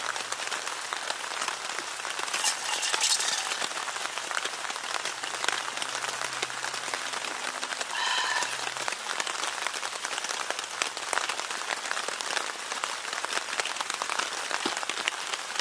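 Steady rain falling in a dense, even patter. About eight seconds in, a short high tone with overtones sounds for about a second.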